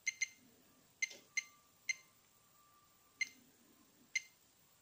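Short high beeps from an LDARC pistol-grip RC transmitter as its menu buttons are pressed, about seven at irregular intervals.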